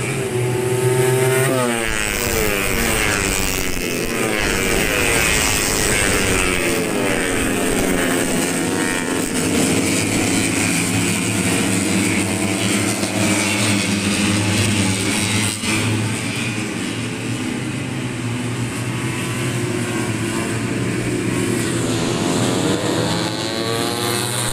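A pack of 150cc four-stroke underbone race motorcycles running hard, several engines at once, their pitches sweeping up and down as they rev and shift. The pitch drops sharply as the bikes pass about two seconds in.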